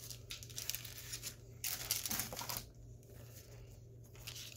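Plastic penny sleeves rustling and crinkling as a trading card is handled and slid into one, loudest about two seconds in, over a low steady hum.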